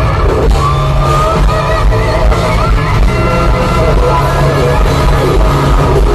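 A hard rock band playing live in an arena, loud and dense without a break.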